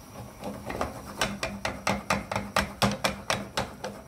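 Saucepan of melting sugar on a gas hob knocking and clicking in a quick, even rhythm, about four or five knocks a second, loudest in the middle.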